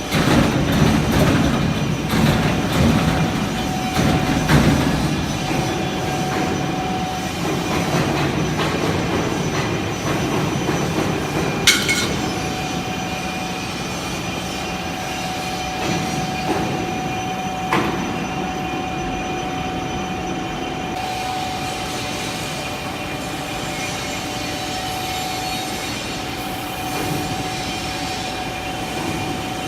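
CNC electro-hydraulic press brake running: steady machine noise with a constant whine, louder and busier in the first few seconds. Two sharp metallic clicks come through, one about halfway and another some six seconds later.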